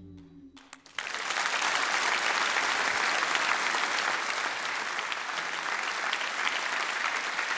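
The last held notes of an instrumental piece die away, a few first claps come in, and about a second in a large theatre audience breaks into steady applause.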